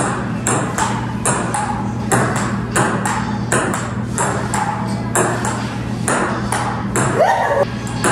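Table tennis rally: the ball clicking off the paddles and bouncing on the table in a steady back-and-forth, about two to three sharp hits a second.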